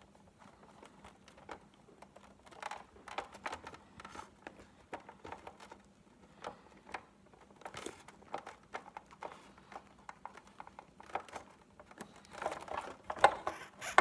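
Irregular small clicks, taps and scrapes of plastic parts being handled as a replacement plastic gear is worked onto the motor of a Big Mouth Billy Bass singing fish, not yet seated. The clicks come more densely and loudest near the end.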